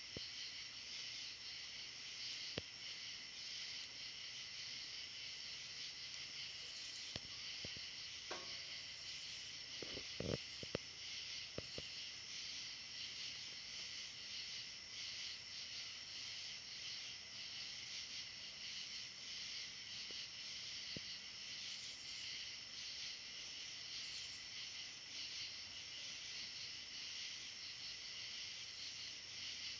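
Steady chorus of night insects, a dense high-pitched trill that pulses slightly, with a short cluster of rustles and soft clicks about a third of the way in.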